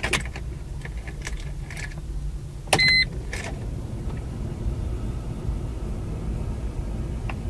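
Car key turned in the ignition of a Mercedes A180 (W169): a few light clicks from the key, then a short electronic beep from the instrument cluster about three seconds in as the ignition comes on, with the engine not yet running. A low steady rumble sits under it.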